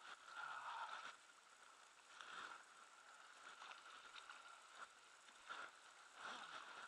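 Near silence: a faint steady outdoor background with a few soft, brief sounds, the clearest at the very start.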